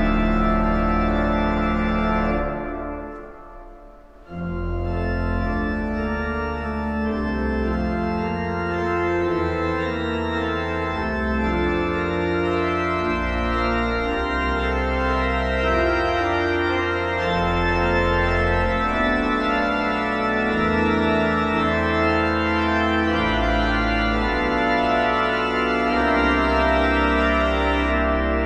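Organ music from a requiem for trumpet and organ: slow sustained chords over deep pedal notes. The opening chord dies away about three seconds in, and after a brief gap the organ comes back in with slowly changing held chords.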